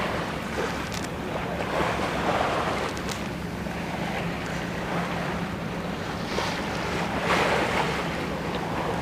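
Sea water rushing and splashing along a sailing yacht's hull as it moves under way, swelling every few seconds, with wind buffeting the microphone. A steady low hum runs underneath.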